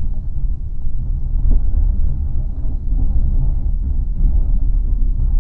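Steady low rumble of a moving passenger train, heard from inside the carriage as it rolls out of the station.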